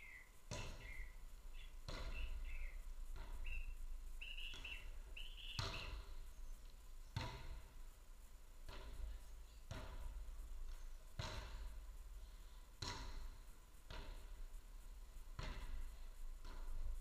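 Footvolley ball being struck back and forth by the players in a rally: a dull thump about every second and a half. A few short, high, rising chirps come in the first five seconds.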